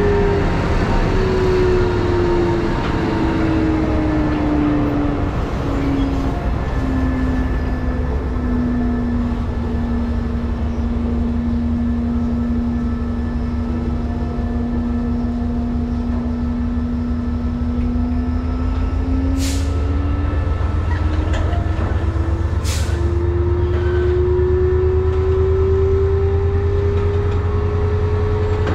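Diesel train engine running close by with a heavy rumble. Its whine drops in pitch over the first several seconds, holds low for a while, then climbs again in the later part. Two short, sharp hisses of air come about two-thirds of the way through.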